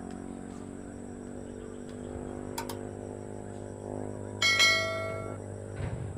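A sudden metallic strike about four seconds in, ringing out like a small bell and fading over about a second, with a faint double click a little before it. Under it runs a steady low hum.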